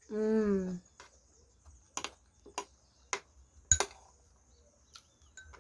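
A short hummed 'mmm' falling in pitch, then sharp clicks of a metal spoon against a plate while eating, about half a dozen spread unevenly, the loudest a little past the middle.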